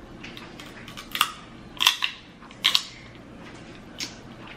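Close-miked eating and food-handling noises at the table: four short, sharp crackling clicks, about a second in, near two, near three and at about four seconds.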